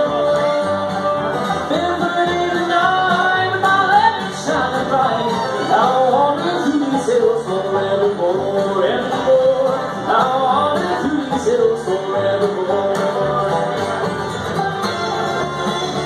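Bluegrass band playing an instrumental break on fiddle, banjo, acoustic guitar and upright bass.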